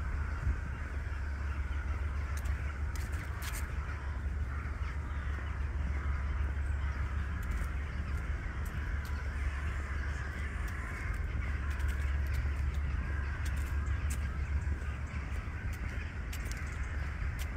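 Birds calling over a steady low rumble, with a few brief sharp clicks around three seconds in and near the end.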